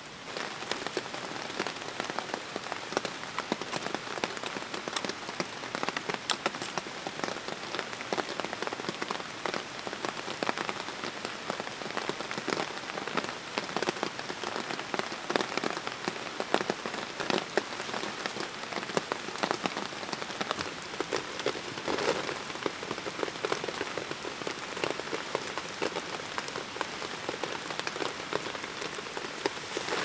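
Steady rain falling on forest leaves, a constant hiss full of many small, close drop hits.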